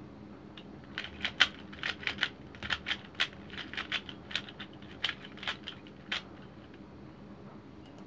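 A plastic 3x3 Rubik's cube being turned quickly by hand, a rapid irregular run of clacking layer turns. These are the final edge-permuting moves (M' and U2 turns) that solve the cube. The clacking starts about a second in and stops about six seconds in.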